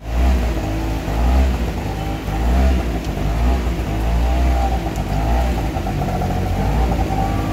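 Auto-rickshaw's small engine running steadily as it drives through floodwater, heard from inside the open cab, with a steady hiss of heavy rain and water.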